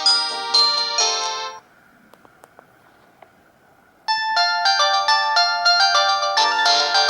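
Polyphonic phone ringtones from an LG GX200, played through a Samsung GT-E2121B's loudspeaker. One electronic melody ends about a second and a half in. After a short quiet gap with a few faint clicks, the next ringtone starts, with several notes sounding together.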